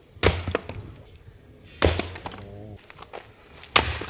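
Firewood being split with an axe: three sharp chopping strikes into the wood, roughly two seconds apart, each followed by a smaller crack.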